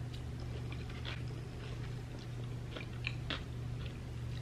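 Close-miked mouth sounds of chewing a bite of samosa chaat: short wet clicks and soft crunches a few times, the clearest about three seconds in, over a steady low hum.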